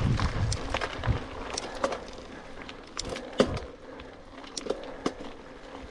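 Mountain bike riding over a rough, wet trail: scattered clicks and knocks of the bike rattling over the ground, the loudest about three and a half seconds in. Wind buffets the microphone for about the first second.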